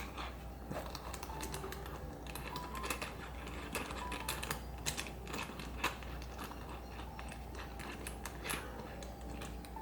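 SmallRig clamp with ball-head shoe mount being handled and tightened by hand: irregular light clicks and taps, spaced unevenly.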